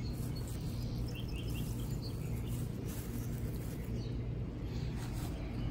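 Outdoor background: a steady low hum, with a few faint bird chirps about a second in.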